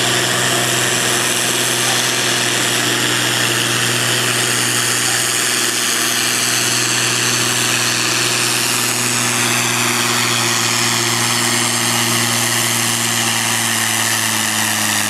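Farm tractor's diesel engine working under heavy load as it pulls a weight-transfer sled, a loud drone holding a steady pitch.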